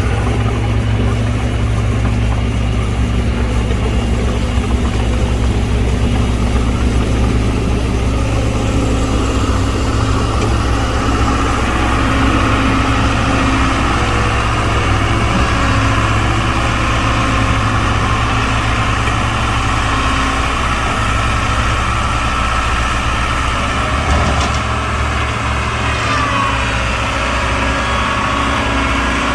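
Diesel engine of heavy earthmoving machinery running steadily at an even speed, its deep hum changing slightly near the end.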